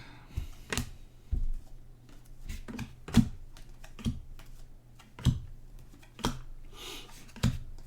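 Trading cards being handled as a pack is sorted: a series of sharp clicks and taps, roughly one a second, as cards are flipped and set down, with a brief soft rustle near the end.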